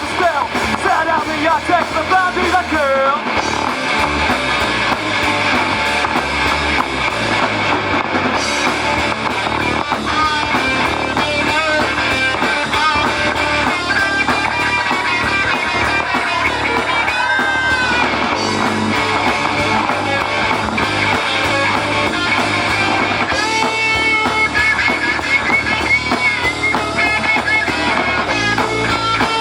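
Rock band playing live: electric guitars over bass and a drum kit, played loud without a break.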